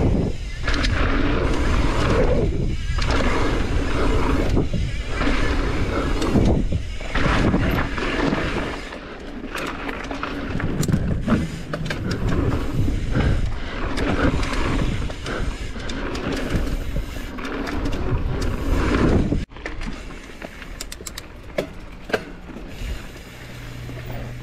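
Mountain bike riding noise on a dirt trail: wind rushing over the microphone, with tyre noise and frame rattles broken by scattered knocks. It drops off sharply about nineteen seconds in, leaving quieter ticks and a faint low hum.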